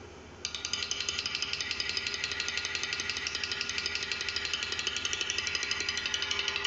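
Snare drum with its snares off, struck with sticks in a very quick, even stream of strokes that starts about half a second in and keeps a steady level, the drumhead ringing under each stroke. It is the piece played exactly as written, to the tempo and dynamic marked.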